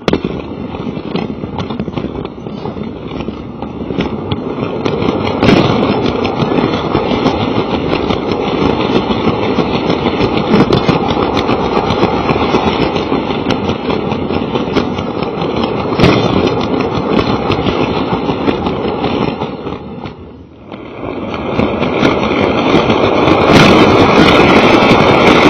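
Lego toy train's electric motor and plastic wheels running along its track, rattling loudly close to the mic, with occasional clicks. It eases off briefly about twenty seconds in, then runs louder with a higher whine near the end.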